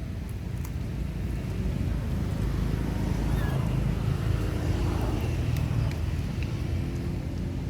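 A motor vehicle engine passing, a low rumble that swells to its loudest four to five seconds in and then eases off.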